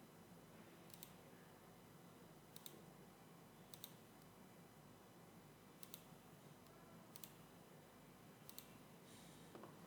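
Faint computer mouse clicks, about six spaced a second or so apart, each a quick double tick, over quiet room hiss.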